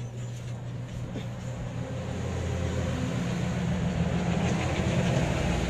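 A motor vehicle engine running: a low, steady hum that grows louder from about two seconds in.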